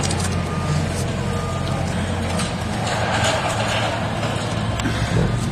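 Motor vehicle engines running steadily with a low hum, swelling briefly into a louder rush of noise about three seconds in, with a faint high beep on and off.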